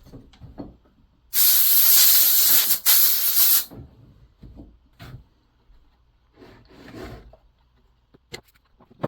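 Compressed air blowing out a chainsaw air filter: a loud hiss lasting about two and a half seconds with a brief break near its end. A softer hiss follows about three seconds later, among light handling clicks.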